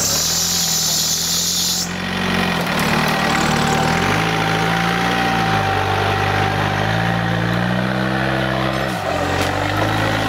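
Off-road vehicle's engine working hard, its pitch rising and falling several times as the throttle is opened and eased. A loud high hiss in the first two seconds cuts off suddenly.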